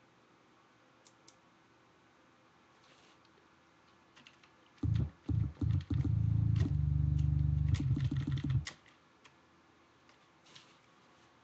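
Clicks from a computer keyboard and mouse, with a loud low rumble that cuts in and out a few times about halfway through, then holds for about three seconds before stopping.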